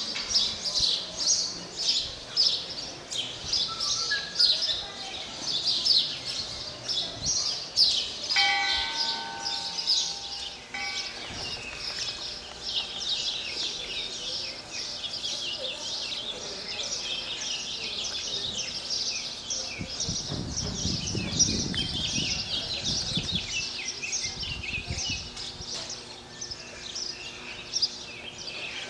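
Many birds chirping continuously. A short ringing tone sounds about eight seconds in, and a low rumble rises and fades about two-thirds of the way through.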